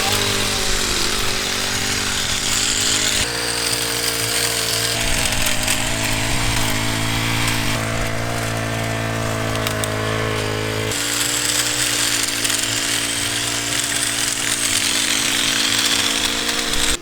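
A small two-stroke petrol garden tool engine, like a hedge trimmer's, running steadily. Its note shifts abruptly about three seconds in and again past the middle, and it cuts off sharply at the end.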